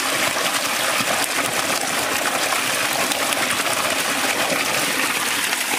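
Water gushing steadily from a pipe outlet into a metal colander of water and splashing as the meat is rinsed in it.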